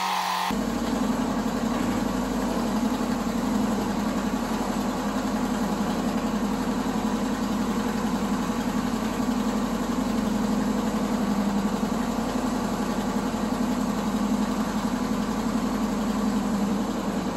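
Engine of an old dump truck running steadily under way, heard from inside its cab.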